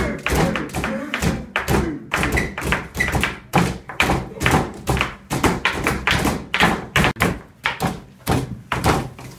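Several people banging their hands and utensils on a table in a ragged rhythm, about three thumps and taps a second.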